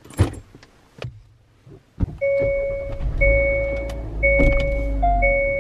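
A few knocks and rustles of a bag set down on a car seat, then, from about two seconds in, a car's electronic warning chime beeping on a steady tone about once a second over the low hum of the car's engine.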